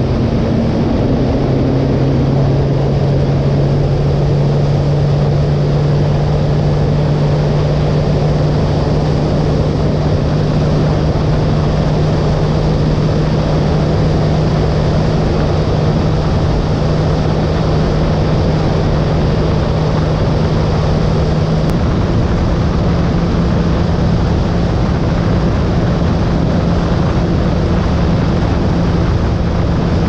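Bass boat's outboard motor running at speed, a steady drone that rises slightly in pitch about two seconds in and again after about twenty seconds, over a continuous rush of wind and water from the moving hull.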